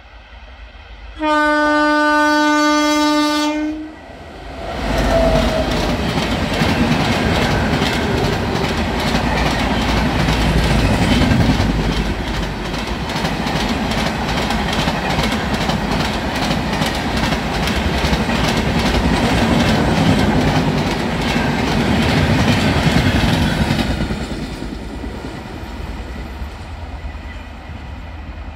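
Indian Railways express train: one long, steady locomotive horn blast, then the train passing at speed with rapid, even clatter of wheels over the rail joints, fading away near the end.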